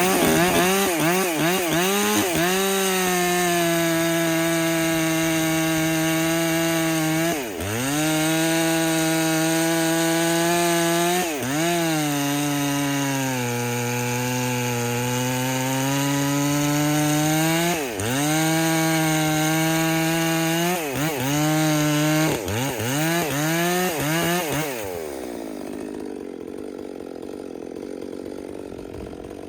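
Husqvarna 257 two-stroke chainsaw running at full throttle through wood, its engine note holding steady and sagging lower under load in the longest cut, with short drops and rises between cuts. About 25 seconds in the throttle is released and it falls to a quiet idle.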